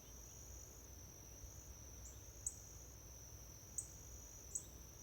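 Faint, steady high-pitched chirring of insects such as crickets, with three short, sharp high chirps in the second half.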